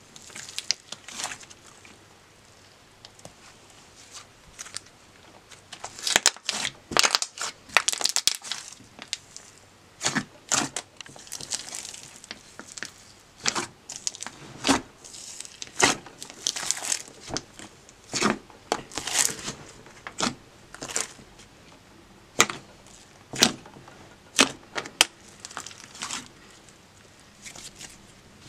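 Fingers pressing, poking and stretching thick glossy slime with foam beads mixed in, giving irregular sharp pops, clicks and crackles in clusters. It is quieter for a few seconds shortly after the start.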